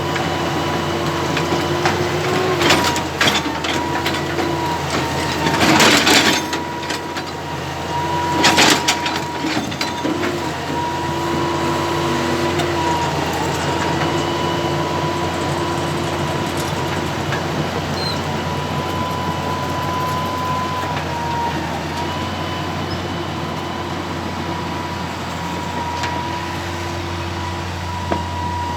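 Excavator's diesel engine running steadily with a high, steady hydraulic whine and a mid-pitched tone that comes and goes. A few loud knocks in the first nine seconds, the loudest about six and nine seconds in.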